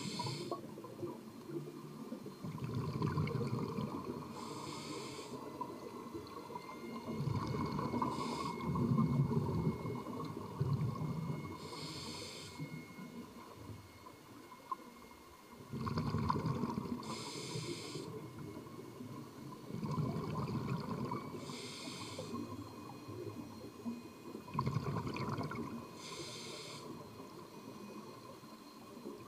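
Scuba regulator breathing heard underwater: a short hiss on each inhale, followed by a longer low bubbling rumble as the exhaled air escapes, repeating in a slow rhythm about every four to five seconds, around seven breaths.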